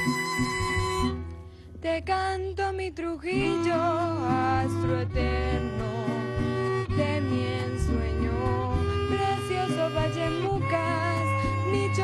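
A Venezuelan waltz (vals) played by a small string ensemble of cello, violins and double bass, with a woman singing over it. The music drops away briefly about a second in, and the singing comes in about three seconds in.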